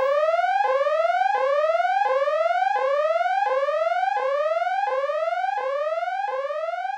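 Synthesized tone sliding upward in pitch, dropping back and sliding up again about three times every two seconds in an even repeating pattern, slowly fading out.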